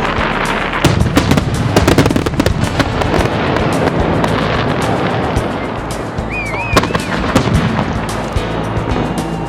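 Fireworks display going off in quick succession: many sharp bangs over continuous crackling, with a brief wavering whistle about two-thirds of the way through.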